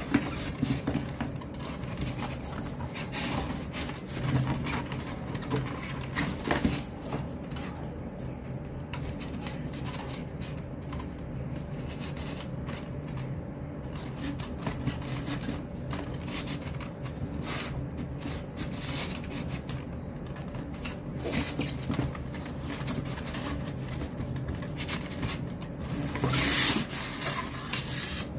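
A cardboard shipping box being handled and opened: cardboard rubbing and scraping, with irregular knocks and crinkles of the flaps and packing tape. It grows louder near the end as the white inner package is pulled out.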